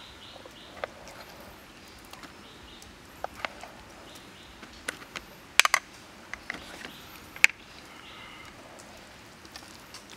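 A spoon clicking and tapping against a plastic plate as sticky minced pork paste is scooped off and patted into patties: irregular sharp clicks, with a quick cluster of three a little past halfway and one more sharp tap soon after. Faint short bird chirps in the background.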